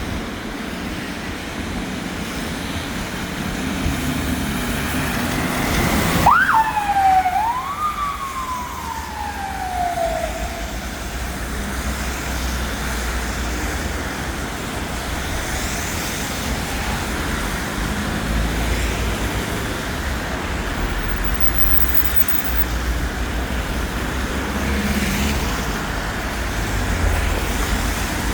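Fire engine siren, the unusual siren of a fire brigade truck, sounds a short burst about six seconds in: a quick sharp rise and drop, then a second rise that slides slowly down and dies away over about three seconds. Engine and traffic rumble carry on for the rest.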